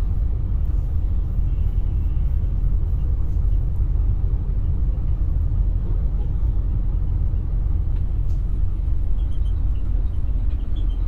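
Steady low rumble of an intercity coach on the move, heard from a rear seat inside the cabin.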